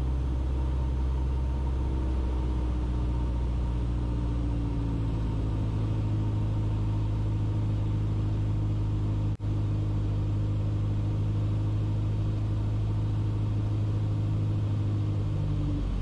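A 1964 Mooney M20E's Lycoming IO-360 four-cylinder engine and propeller droning steadily, heard from the cockpit, throttled back as the plane floats down the runway in the landing flare. The sound drops out for an instant a little over nine seconds in.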